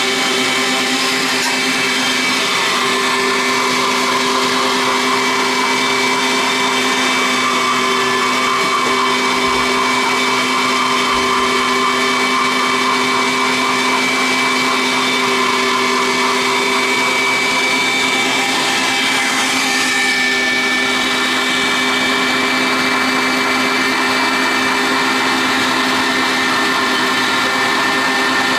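Electric meat grinder motor running steadily with a constant hum, grinding soaked bread.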